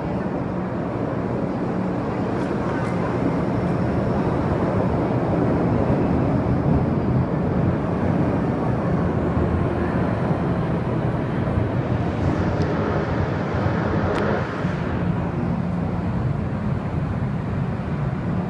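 MTR Island Line M-Train running through the tunnel: a steady rumble of wheels and running gear that grows a little louder over the first few seconds. There is one sharp click about fourteen seconds in.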